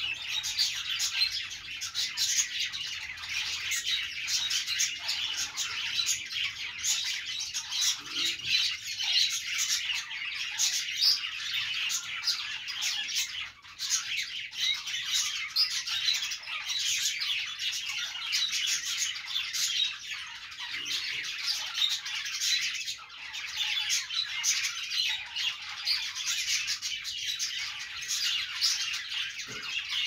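A flock of budgerigars chattering together: many short, overlapping warbling calls and chirps, with no pause, at an even loudness.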